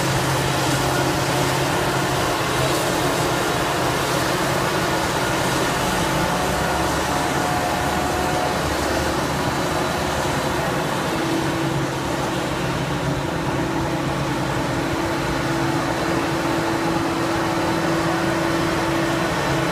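Claas Jaguar 950 self-propelled forage harvester chopping maize: a steady, loud drone of its engine and chopping drum, mixed with the tractor running alongside with the trailer. About halfway through, a higher steady tone joins the drone.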